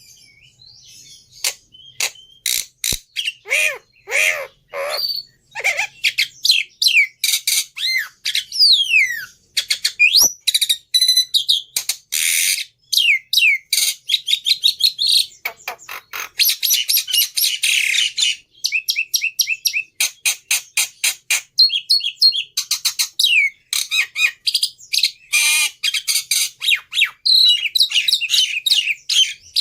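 Jalak (Asian starling) singing a rapid, continuous song of varied whistles, sliding notes and harsh chattering phrases: a lure recording played to get caged jalak to start singing.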